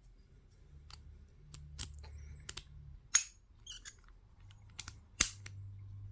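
A string of small sharp metallic clicks and clinks as keys and brass padlocks with steel shackles are handled, about ten in all, the loudest about three seconds in and again about five seconds in.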